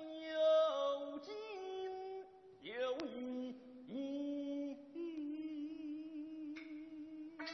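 Slow, drawn-out singing: one voice holds long notes and slides between them, with no clear words. A single sharp click sounds about three seconds in.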